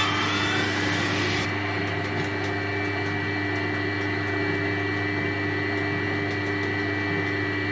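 Colchester Chipmaster lathe running with its chuck spinning and coolant flowing: a steady mechanical hum and whine. The whine rises in pitch and levels off about a second in.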